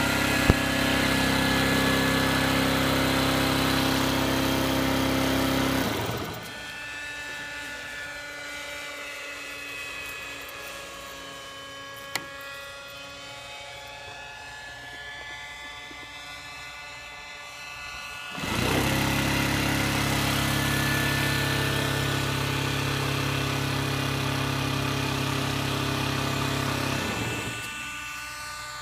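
RC model airplane motor running with a steady whine. About six seconds in it drops off suddenly and goes quieter, its pitch bending up and down. It comes back loud and steady about eighteen seconds in, then drops again near the end.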